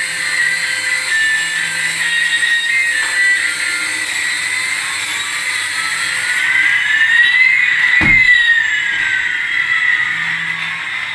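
High whine of small toy electric motors, with two pitch glides crossing, one rising and one falling, and a single knock about eight seconds in.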